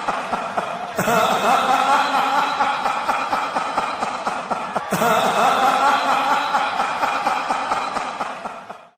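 Sinister, layered laugh sound effect, a chuckling snicker that starts afresh about a second in and again near five seconds, then fades out at the very end.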